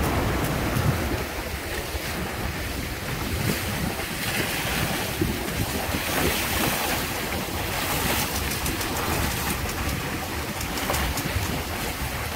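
Water rushing and splashing along the hulls of a Windrider 17 trimaran sailing fast through choppy waves, with wind buffeting the microphone. The hiss of spray swells and fades every couple of seconds as the boat runs over waves.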